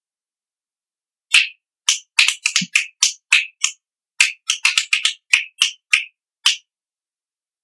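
A quick, irregular run of about eighteen sharp clicks over some five seconds, with dead silence around them.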